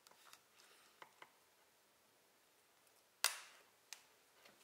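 Small metal clicks as a safety pin is pushed into the pad-retaining screw of a SRAM Red hydraulic disc brake caliper, with one sharp snap about three seconds in as it seats.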